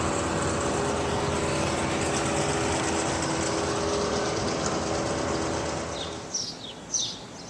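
Steady mechanical running noise with a low hum, fading out about six seconds in; a few short, high chirps like birdsong follow near the end.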